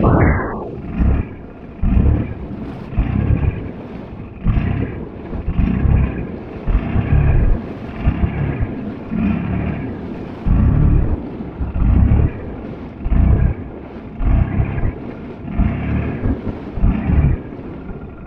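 ATV engine running on a trail, its low rumble surging and easing about once a second, with a falling rev right at the start.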